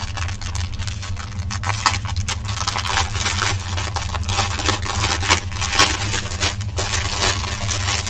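Clear plastic bag crinkling and rustling as hands handle and pull open a packet of diamond painting drill strips. A steady low hum runs underneath.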